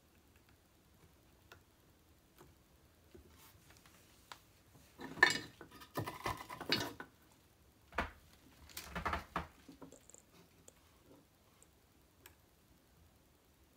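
Small clicks, clinks and rustles of guitar wiring parts and pickup leads being handled on a pickguard, in short clusters about five to seven seconds in, a sharp click at eight seconds and more clicks just after nine seconds.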